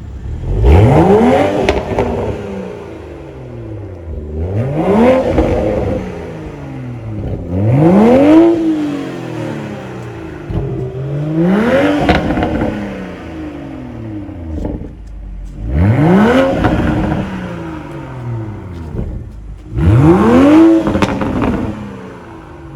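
2021 Toyota Supra GR 3.0's turbocharged inline-six on its stock exhaust, revved six times. Each rev climbs quickly in pitch and falls away slowly, with crackles and pops on the overrun.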